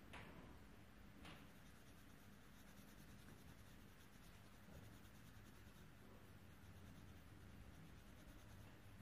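Faint scratching of a coloured pencil on paper as a drawing is shaded in with quick repeated strokes.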